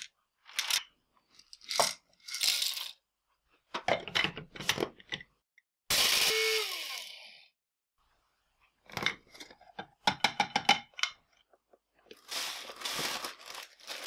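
Coffee-making handling sounds: clicks and rattles of beans and containers, then about six seconds in a short run of an electric blade coffee grinder whose motor winds down with a falling pitch. More clicking and rattling follows, then plastic crinkling near the end.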